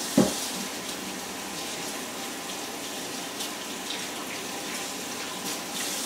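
Kitchen faucet running steadily into a sink while hands are washed under the stream, with a brief knock just after the start.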